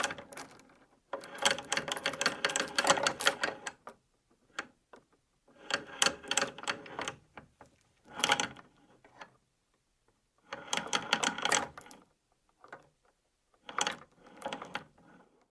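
Metal chains being pulled, rattling and clinking in runs of about half a second to two and a half seconds, with short silent gaps between them.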